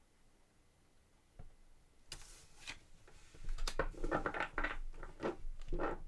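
Tarot cards being shuffled and handled: a soft click, then a swish about two seconds in, then a quick run of card flicks and taps that grows louder from about three and a half seconds.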